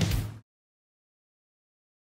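Loud music with a strong beat that cuts off abruptly less than half a second in, leaving dead silence.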